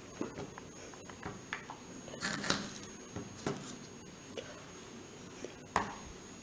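Quiet kitchen handling noises: scattered light clicks, taps and rustles, with a sharper click about two and a half seconds in and another near the end.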